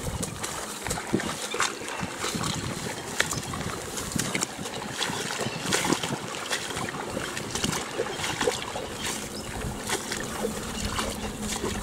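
Footsteps wading through a flooded rice paddy: irregular sloshing and splashing of water among the rice stalks, over a steady hiss of rain.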